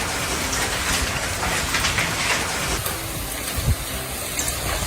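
Heavy rain falling steadily, with a brief low thump about three-quarters of the way through.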